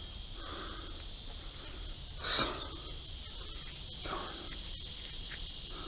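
Steady high-pitched insect chorus, with a few brief soft scrapes; the loudest scrape comes about two seconds in.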